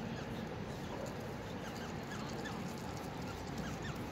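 Waterbirds calling: a run of short, faint chirping calls, about three a second, over a steady low rumble.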